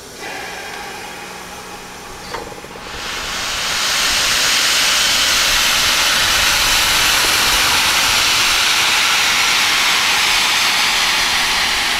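Steam locomotive 23 042 blowing steam from its cylinder drain cocks: a moderate hiss that swells about three seconds in to a loud, steady rush of steam, with a short click just before the swell.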